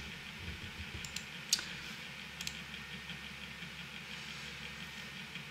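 Quiet room tone with a low steady hum, and a few soft clicks from someone working a computer, about one and a half to two and a half seconds in.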